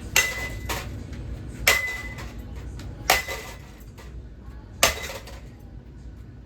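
Ceiling fan being smashed with hard repeated blows. Four sharp metallic impacts come about a second and a half apart, each with a short ringing tone, and a fifth lands right at the end.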